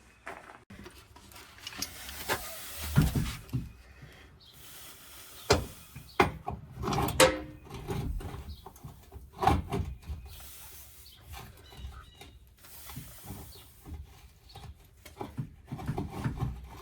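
Irregular knocks, clanks and scraping of hand tools working on old plumbing fittings, with several sharp knocks about five to ten seconds in.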